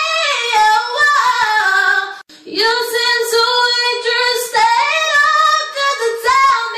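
A young woman's solo singing voice, unaccompanied, holding and bending notes high in her range around E-flat 5. The singing comes in two phrases split by a short break about two seconds in.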